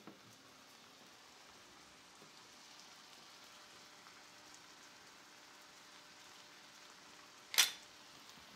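Mushrooms and red wine in a sauté pan reducing over high heat, a faint steady sizzling hiss. A single short, sharp clatter about seven and a half seconds in.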